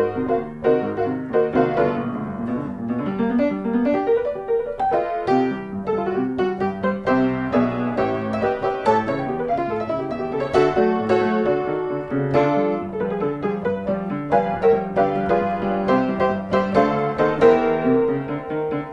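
Background piano music, a continuous flow of quick struck notes.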